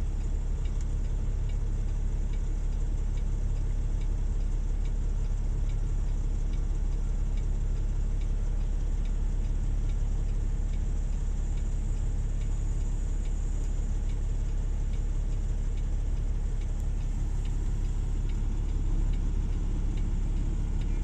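Diesel engine idling, a steady low rumble that holds even throughout, heard from inside a truck cab.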